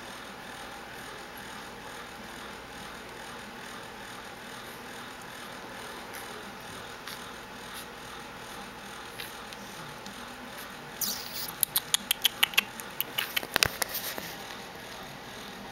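A steady faint hiss, then about three seconds before the end a quick run of sharp clicks and scratchy rustles close to the microphone.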